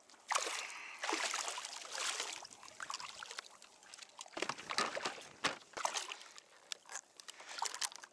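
Water splashing and sloshing beside a kayak as a hooked barracouta thrashes at the surface. From about halfway on come quick sharp clicks and knocks while the fish is handled and unhooked.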